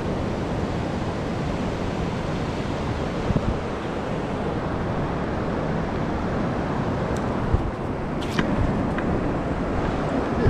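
Wind blowing across the microphone over surf on the beach, a steady rushing noise. A few short knocks come about three and eight seconds in.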